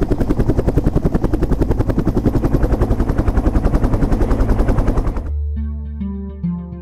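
A loud, fast, even rattle of sharp beats, more than ten a second, which cuts off suddenly about five seconds in; music with plucked bass and guitar notes follows.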